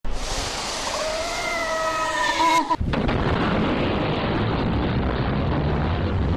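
Cinematic logo-sting sound effect: a rushing whoosh with wavering tones that cuts off sharply almost three seconds in, giving way to a deep boom that rumbles on low.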